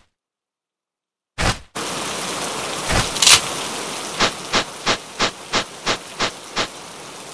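Steady hiss of rain starts after about a second and a half of complete silence, opening with a short sharp crack. A louder crack comes about three seconds in, then a row of eight evenly spaced short taps, about three a second, over the rain.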